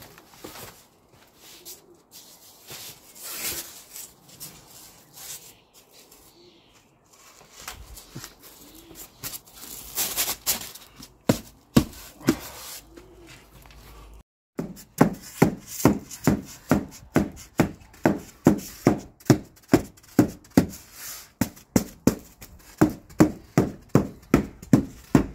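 Hands handling and pressing adhesive-backed EPS insulation boards against a wall. In the second half the palms slap the board steadily, about twice a second, bedding it into the adhesive.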